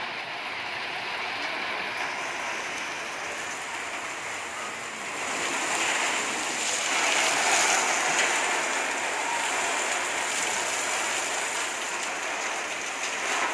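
Fire hoses spraying water onto a burning house: a steady rushing hiss of spray and splashing that swells louder about five seconds in.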